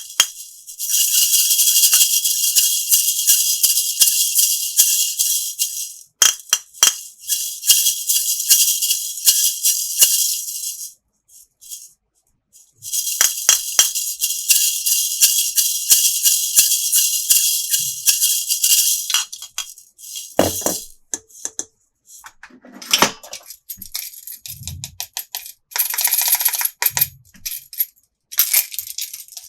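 Plastic toy pieces and packaging being handled, rattling and crinkling in three long stretches of dense clicking noise. In the last third this gives way to scattered clicks and taps with a few soft thumps.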